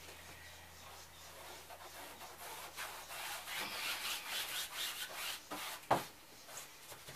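A paintbrush scrubbing back and forth against a travel trailer's interior wall panel: a run of quick rubbing strokes starting about two seconds in and lasting about three seconds. A single sharp knock follows about six seconds in.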